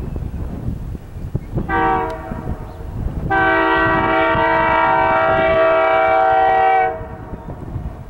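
Locomotive air horn on an EMD GP20C-ECO diesel sounding for a level crossing: a short blast about two seconds in, then a long steady blast of about three and a half seconds. Wind buffets the microphone throughout.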